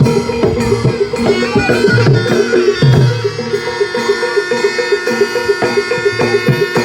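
Barongan accompaniment music: drums beating under a fast, evenly repeating pitched pattern, with steady higher tones held above.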